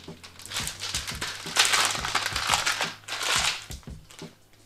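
Metallized anti-static bag crinkling in several bursts as it is opened and the reel of LED strip is pulled out, loudest from about one and a half to three seconds in.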